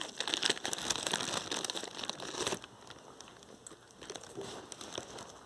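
Plastic snack wrapper crinkling and crackling for about two and a half seconds, then only a few faint crackles.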